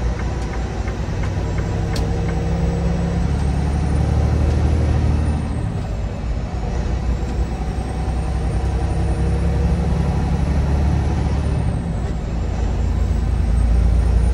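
Semi-truck's diesel engine running under way, heard from inside the cab as a steady low drone; its note shifts about three seconds in and dips briefly about six and twelve seconds in. A single sharp click about two seconds in.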